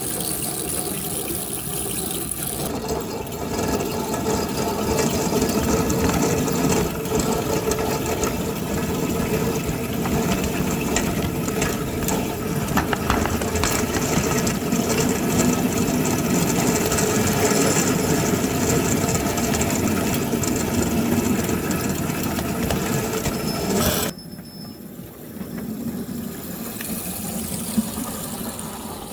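Ride-on miniature railway train running along its track: a steady mechanical running noise with rattling. It cuts off sharply about three-quarters of the way through, leaving a quieter rumble.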